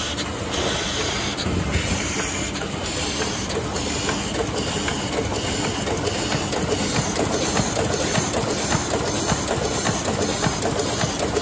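Heidelberg Speedmaster SM 52 two-colour sheetfed offset press running: a steady mechanical clatter of fast, even ticking with air hissing over it.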